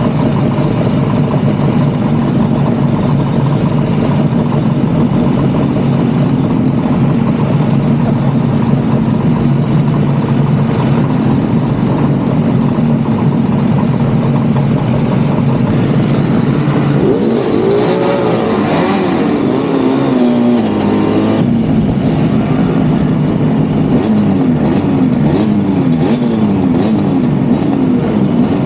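Several two-stroke motorcycle engines idling together, then revved with rising and falling pitch a little over halfway through, and revving again as the bikes pull away near the end.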